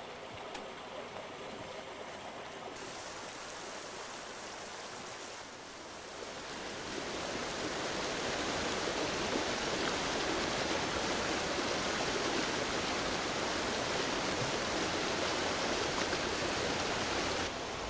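Mountain stream rushing over boulders and small cascades, a steady wash of water noise that grows louder about seven seconds in and drops back near the end.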